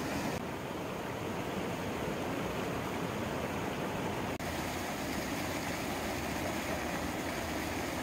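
Mountain stream rushing and splashing over granite boulders in small cascades, a steady rush of white water that shifts slightly in tone about half a second and about four and a half seconds in.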